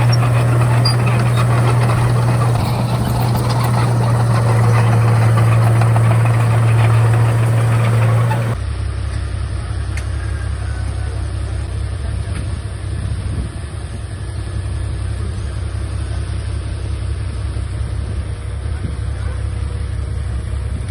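Heavy-equipment diesel engine running loud and steady with a strong low hum, then an abrupt change about eight seconds in to a quieter, deeper engine sound.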